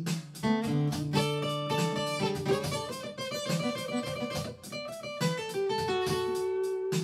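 Acoustic guitar fingerpicked in a blues style: single picked notes over a repeating bass note, with one note gliding down in pitch about five seconds in.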